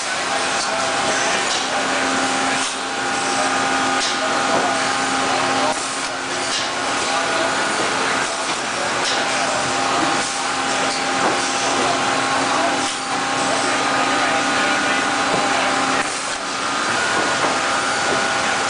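Vemag 500 filler and its meat-processing line running: a steady mechanical hum with several held tones, and sharp clacks and knocks from the machinery repeating irregularly every second or two.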